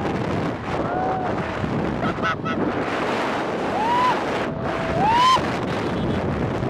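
Wind rushing over the microphone of a moving motorcycle, a steady roar. Over it come a few short high calls that rise and fall in pitch, the loudest about five seconds in.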